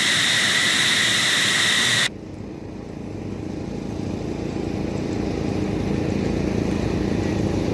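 A jet engine running with a loud high whine and rushing hiss, which cuts off abruptly about two seconds in. A lower engine rumble follows and grows steadily louder.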